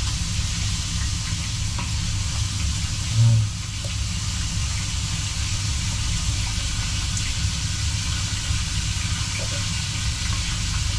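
Steady background hiss and low hum, with faint knife taps and scrapes as raw fish fillet is sliced into strips on a plastic cutting board. A short low thump comes about three seconds in.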